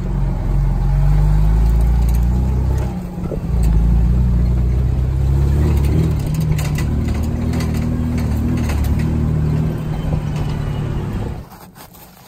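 Nissan GQ Patrol 4WD engine running under load as the vehicle drives slowly over a rutted sandy track, heard close from the cab. The engine note eases off briefly about three seconds in and then pulls again, with scattered knocks and rattles in the middle. It cuts off sharply near the end.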